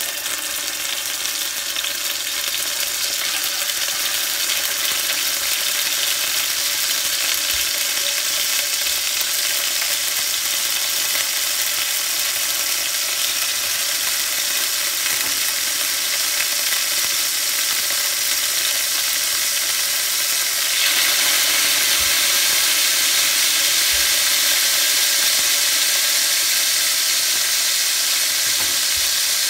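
Marinated chicken pieces sizzling as they sear in hot oil in a cast-iron skillet, more pieces laid in one after another. The sizzle is a steady hiss that grows louder about two-thirds of the way through as more chicken goes in, with a few faint knocks of pieces touching the pan.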